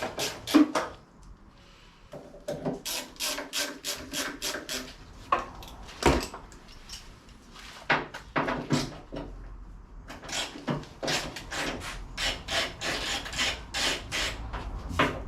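Hand ratchet being worked back and forth on the van's bonnet bolts, giving runs of rasping clicks at about four strokes a second, broken by pauses and a couple of sharper knocks midway.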